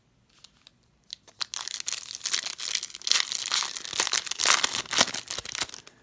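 The foil wrapper of a baseball card pack being torn open and crinkled by hand. A dense, crackling rustle starts about a second in after a few faint clicks.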